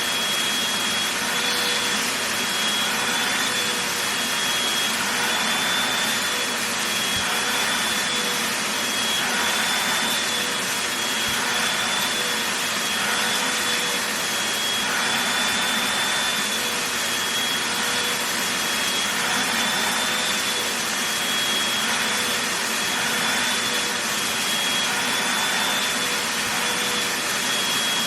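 Vacuum cleaner running steadily as it vacuums a blanket: a constant motor rush with a high whine, rising and falling slightly every couple of seconds.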